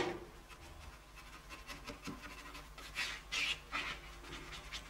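Faint scratchy strokes of a bristle brush working stain onto a wooden chair's turned parts, a few short strokes clustered around three seconds in.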